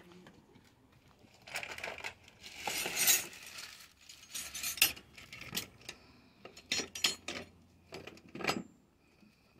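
Small metal objects clinking and clattering as they are handled, in a string of separate clicks and short rattles, loudest about three and five seconds in.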